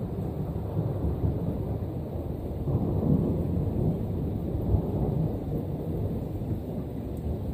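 Rolling thunder rumbling low and long, swelling about three seconds in and then slowly easing off.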